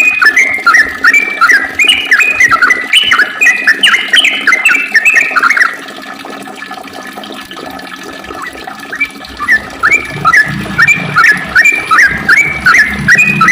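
Yellow-vented bulbul (trucukan) singing long, rapid runs of short chattering notes; it breaks off about six seconds in and starts again a few seconds later. A low hum comes in under the song near the end.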